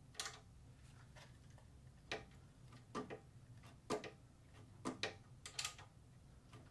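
About six faint metallic clicks, roughly one a second, from a 9/16-inch wrench tightening the upper starter mounting bolt that holds the seawater pump bracket.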